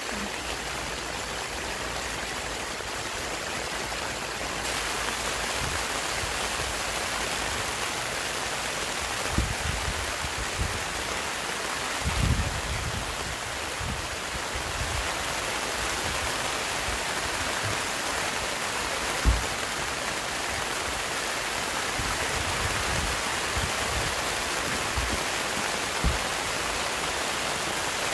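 Heavy rain falling on tent and gazebo fabric, a steady hiss, with a few brief low thumps.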